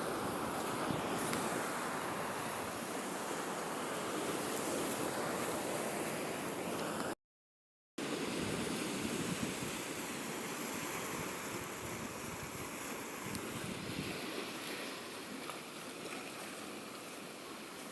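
Pacific Ocean waves washing gently onto the shore, a steady rushing surf noise. It drops out to silence for under a second about seven seconds in.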